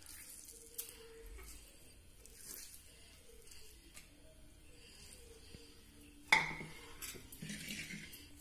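Faint, soft handling sounds of hands squeezing wet, salted taro stem pieces and dropping them into a cooking pot, with a few small ticks and a brief louder clatter about six seconds in.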